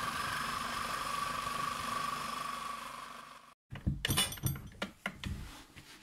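A steady mechanical whir with a high hum runs for about three and a half seconds and cuts off abruptly. Then come a run of sharp clicks and metallic rattles from handling the blade end of a Bosch GSA 1100 reciprocating saw.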